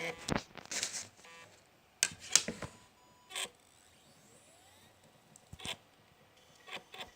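PowerBook G4 optical drive with a disc loaded, giving a series of irregular clicks and short mechanical whirs as it tries to start the disc, without spinning up fast. It is a sign that the drive is failing to read the disc, which the owner puts down to a dirty laser lens.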